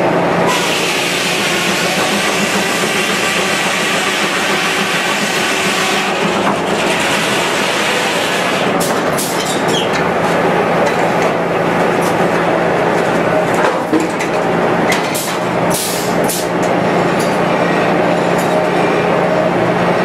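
Circular sawmill running: the headsaw and log carriage clatter on steadily over a constant low hum. The first six seconds hold a loud hissing cut through the log, and a run of sharp knocks and clanks follows from about nine to seventeen seconds in.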